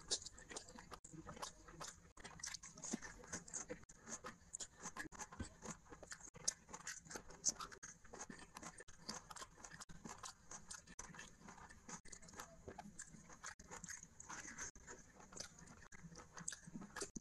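Close-miked eating of rice and curry by hand: fingers squishing and kneading the wet rice on the plate, and moist chewing and lip-smacking, heard as many quick, irregular clicks and smacks.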